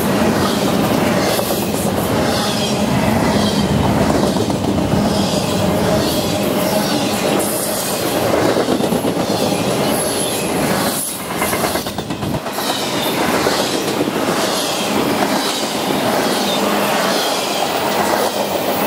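Double-stack intermodal freight train's well cars rolling past, steel wheels clacking over the rail joints in a steady repeating rhythm, with a brief dip in loudness about eleven seconds in.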